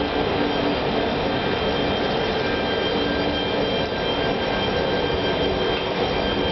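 Electric-hauled train of vintage Wagons-Lits sleeping cars pulling slowly out of a station: a steady mechanical hum and hiss with several held whining tones over a low rolling rumble.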